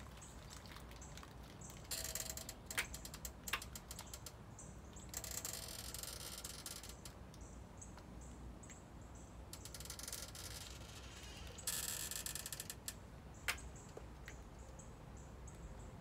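Rustling and handling noise in several short bursts, with a few sharp clicks, as the seatbelt strap of a power wheelchair is worked by hand.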